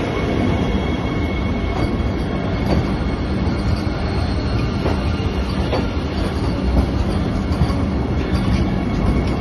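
Vande Bharat Express electric multiple-unit train running slowly along a station platform: a steady rumble of the cars with scattered wheel clicks and a faint steady high whine.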